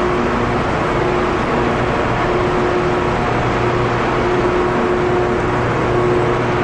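Steady mechanical hum over a constant hiss, with a few faint held tones that fade in and out.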